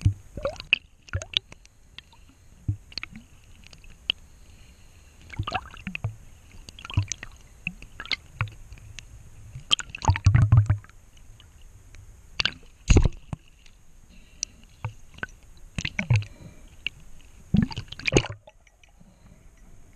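Underwater sound heard through a camera's waterproof housing while spearfishing: irregular sharp clicks and knocks with low thumps and watery sloshing from the swimmer handling the speargun. The loudest knocks come in clusters about ten, thirteen and eighteen seconds in.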